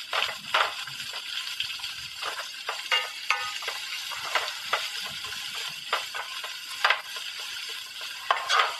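Sliced onions and curry leaves sizzling in hot oil in a metal pan, sautéing. The pan is stirred, with irregular scraping clicks against the metal over a steady hiss.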